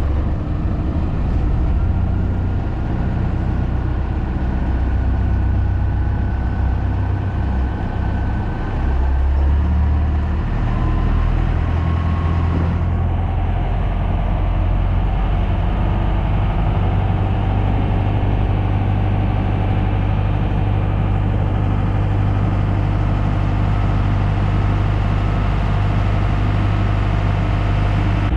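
Boat engine running with a steady low hum, its pitch shifting about ten seconds in before it settles again.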